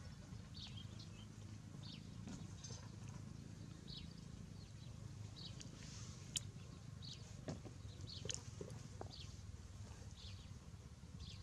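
Faint bird chirping outdoors: short high chirps repeating about once a second over a low steady hum, with a single sharp click about six seconds in.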